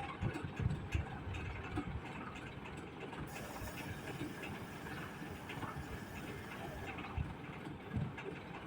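Wheel loader running steadily, with low knocks and clanks in the first two seconds and again near the end.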